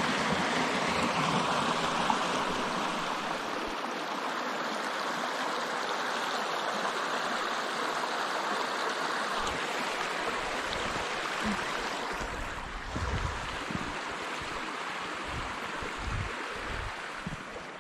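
Steady rushing of a small forest stream, its water pouring over a shallow riffle and through a beaver dam of sticks. In the second half, irregular low thuds come in under the water sound.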